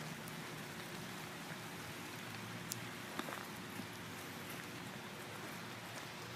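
Steady rain falling, with a couple of faint clicks about three seconds in.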